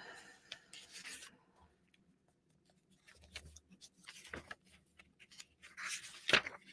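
Faint rustling and scraping close to a desktop microphone, with scattered small clicks. A louder rustle comes about four seconds in, and a sharper tap comes just after six seconds.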